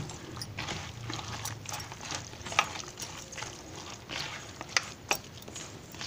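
A hand squishing and mixing a wet semolina and vegetable batter in a plastic bowl: irregular wet squelches with a few sharper clicks.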